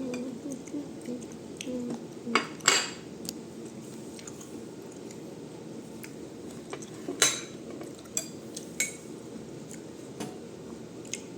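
Cutlery clinking and knocking against dishes in scattered strikes, the loudest a little under three seconds in and again about seven seconds in.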